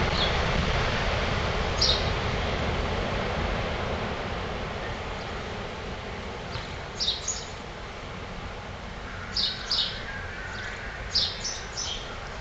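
Ocean surf and wind, a steady rushing noise that eases after the first few seconds. Short high bird chirps, mostly in pairs, come once about two seconds in and then repeatedly from about seven seconds on.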